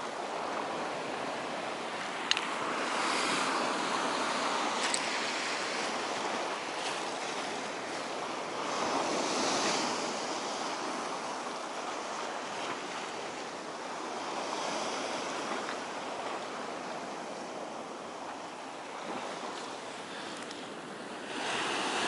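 Stormy sea surf washing against a rocky pier, a steady hiss that swells and fades every five or six seconds, with wind. A couple of faint clicks come early on.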